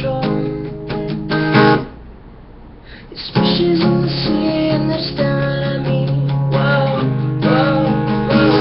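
Acoustic guitar music with strummed chords and sustained notes, breaking off for about a second and a half roughly two seconds in before starting again.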